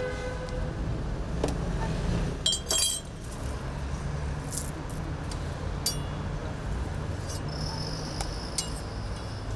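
A metal spoon clinking a few times, ringing briefly, over a low steady rumble of street traffic. A thin high whine is heard near the end.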